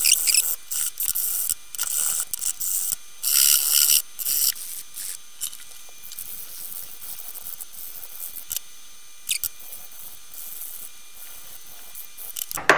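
Hand file rasping across the edges of a mahogany block in repeated back-and-forth strokes. The strokes come thick and fast for the first few seconds, then thin out into occasional strokes and light clicks.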